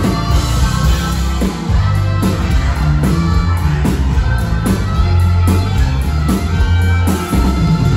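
Live norteño band playing an instrumental passage: a heavy bass line and steady drum beat under electric guitars, coming in loud right at the start.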